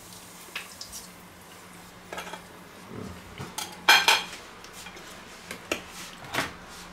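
Metal cutlery clinking and scraping on a plate: a series of separate clinks, the loudest pair about four seconds in.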